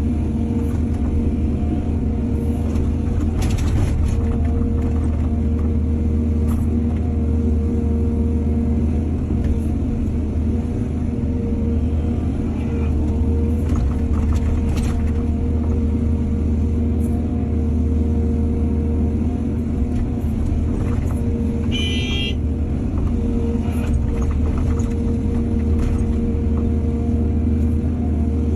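Heavy diesel engine of an excavator loading soil, running steadily at constant speed, with a few short scraping noises and a brief high-pitched tone about 22 seconds in.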